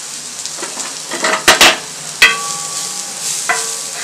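Sliced onion and green capsicum sizzling on a hot tawa as a spatula stirs them. The spatula clanks against the pan four times from about a second and a half in, each clank ringing briefly.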